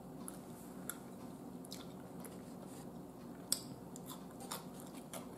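Faint wet mouth sounds of a person chewing food: scattered short smacks and clicks, the loudest about three and a half seconds in, over a low steady hum.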